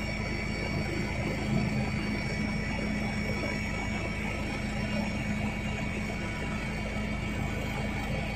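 Steady helicopter cabin noise: the engine and rotor drone, with a constant high whine over it.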